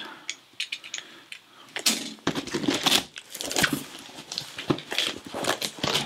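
Cardboard box flaps being pulled open against cut packing tape: a run of irregular crackles, scrapes and light knocks of cardboard.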